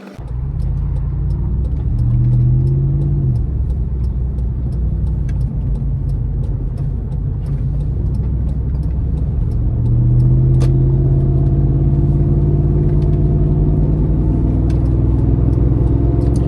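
Toyota 4.7L V8 with a Magnaflow Overland cat-back exhaust heard from inside the cabin: a low drone and rumble under road noise. The engine note swells and climbs briefly about two seconds in, then again from about ten seconds on as it accelerates.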